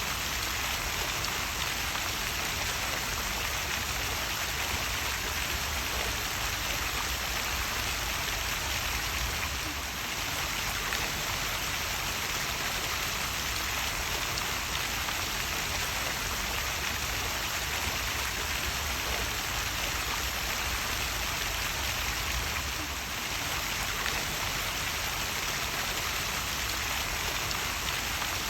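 Small waterfall: a steady rush and splash of falling water, with brief slight dips in level about ten seconds in and again near the end.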